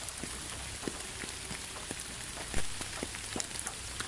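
Steady rain falling on a hard surface, with many separate drops heard as light ticks and one louder tap about two and a half seconds in.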